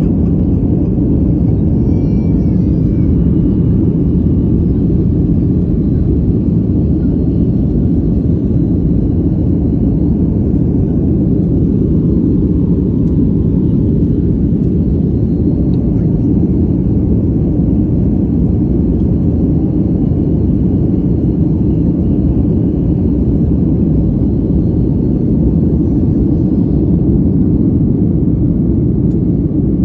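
Steady low roar of an airliner's jet engines and rushing air heard inside the cabin, with the aircraft climbing just after takeoff.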